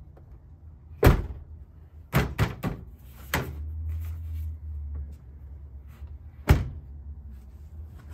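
A pickup truck door is shut with a loud thunk about a second in. A few quicker knocks and taps follow as a new rocker panel is pressed into place against the sill, and there is another loud thunk near the end.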